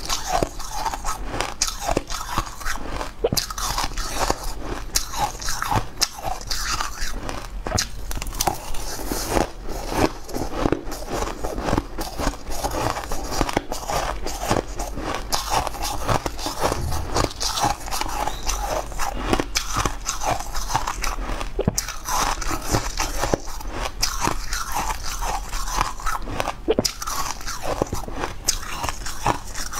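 Crushed ice being bitten and chewed, a dense run of crisp crunches with no break.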